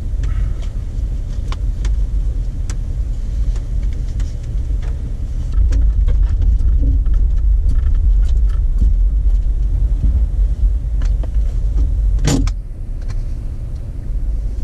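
Jeep Wrangler running as a low rumble, louder from about five and a half seconds in as it moves off along a rough dirt track, with scattered ticks of rain on the body and windshield. A single sharp knock comes about twelve seconds in.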